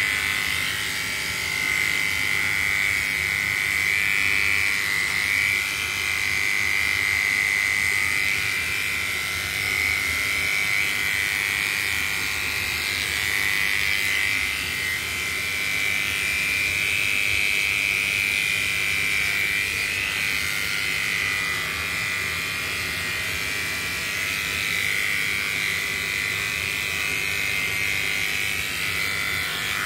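Electric pet hair clipper running steadily as it shaves thick fur off a cat. Its high buzz wavers slightly in pitch as the blade works through the coat.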